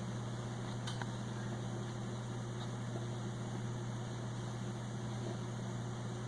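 A steady low hum over a faint hiss, with a single faint click about a second in.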